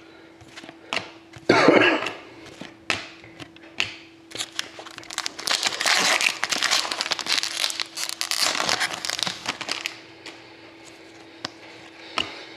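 A foil trading-card pack wrapper crinkling as it is torn open and handled, with a sharp loud crinkle about a second and a half in and a longer spell of crackling in the middle. Small clicks of cards being handled come in between.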